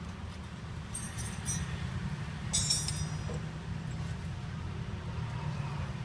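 Peugeot 406 engine running with a steady low hum, and two short metallic clinks about one second and two and a half seconds in.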